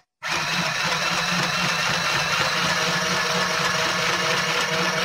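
Small electric mini sewing machine running steadily as it stitches through fabric, with a low-powered motor hum and needle mechanism. It cuts in abruptly just after the start and keeps an even pace.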